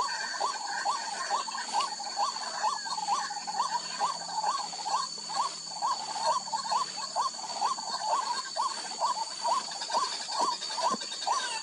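White-breasted waterhen (ruak-ruak) calling: a long, even run of repeated hooked notes, about two a second, over a steady high whine.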